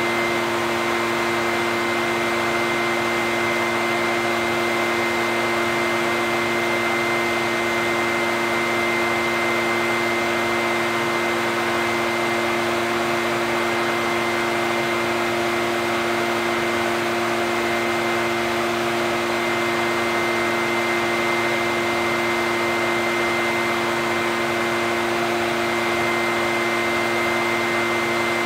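Echo two-stroke backpack leaf blower running steadily at a constant speed: a steady rush of air with an even hum.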